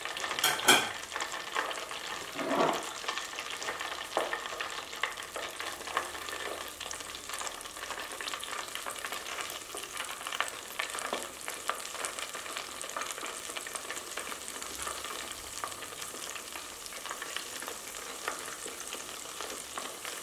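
Chicken wings deep-frying in hot oil in a stainless steel pot: a steady crackling sizzle of bubbling oil, with a couple of louder knocks about a second and two and a half seconds in.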